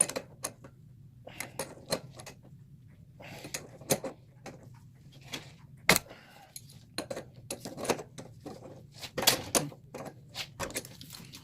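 Irregular metal clicks and clinks of an Allen key and channel-lock pliers working the top nut on a suspension strut's shaft, with one sharper knock about six seconds in.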